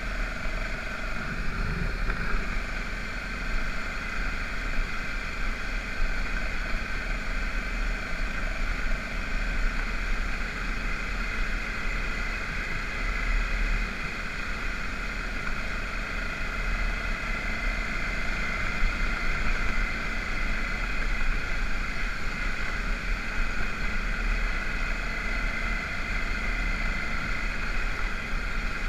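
BMW F650GS motorcycle engine running steadily at cruising speed on a gravel road, with wind rumbling on the handlebar-mounted camera's microphone.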